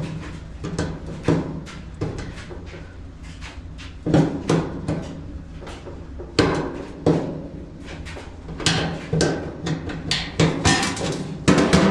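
Irregular knocks, taps and scrapes of hand tools working on a stuck Amana dryer bearing to clean it, over a steady low hum.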